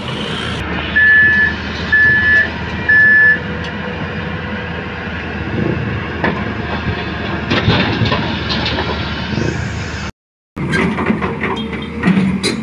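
A reversing alarm beeps three times, about a second apart, over the steady running of heavy construction machinery. The sound drops out briefly near the end and comes back with clanking.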